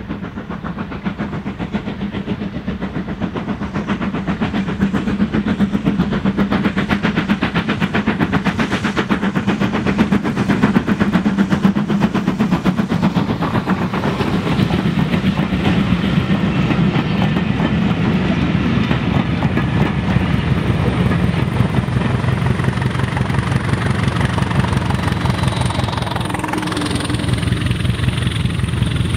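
LMS Ivatt Class 2MT 2-6-2T tank steam locomotive No. 41241 hauling a train of coaches past. It grows louder over the first ten seconds or so as it approaches, then its coaches roll by.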